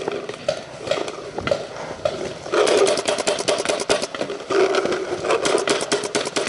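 Paintball marker firing: a few scattered shots, then rapid strings of about ten shots a second, with a steady hum under them.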